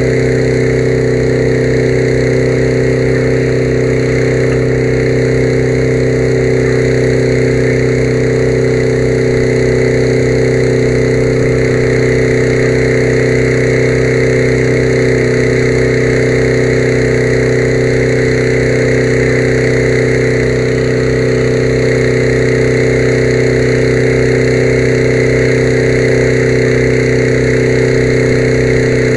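A small engine running at a steady speed, a constant drone that does not rev up or down.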